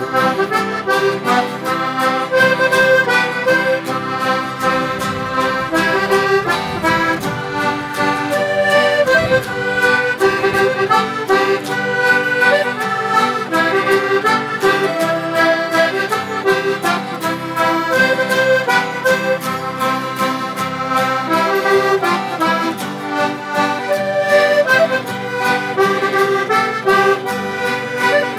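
Instrumental break of a traditional folk song: a button accordion playing the tune over strummed acoustic guitars and mandolin, at a steady rhythm.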